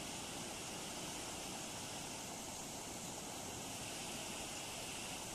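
Muddy floodwater rushing steadily over a low causeway, churning into white water as it spills down the step.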